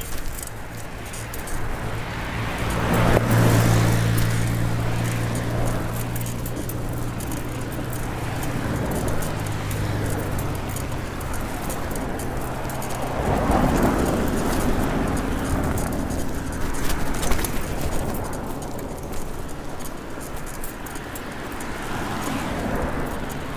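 Road traffic heard from a bicycle being ridden along the roadside: a vehicle passes with an engine hum about three seconds in, and another about halfway through. Under it runs a steady rush of wind and road noise with frequent small clicks and rattles.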